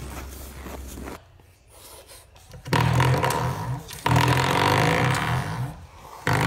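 Spring door stopper swatted by a dog's paw, twanging with a loud buzzing vibration three times, each twang starting suddenly and ringing on for a second or more. A low rumble before it cuts off about a second in.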